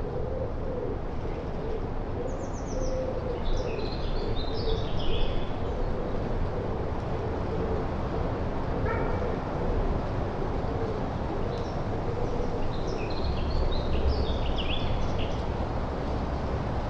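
Birds: one bird gives low hooting calls over and over through most of the stretch, and a small songbird sings a short, high, quick phrase twice, about two seconds in and again about eleven seconds in. A steady low rumble lies underneath.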